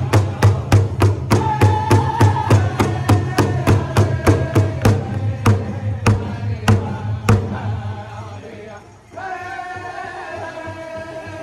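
Powwow drum group singing in chorus around one large shared drum, the drummers striking a fast, steady beat under high-pitched voices. Partway through, the beat thins to a few spaced strikes and stops. After a brief break the voices carry on without the drum.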